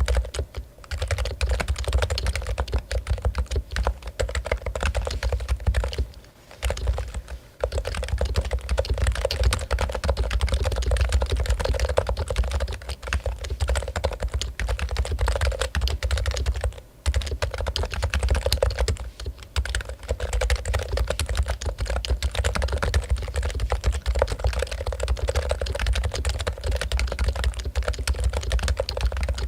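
Fast, continuous typing on a Topre Realforce keyboard, its electro-capacitive Topre switches giving dense key strokes, with short breaks about six and seventeen seconds in.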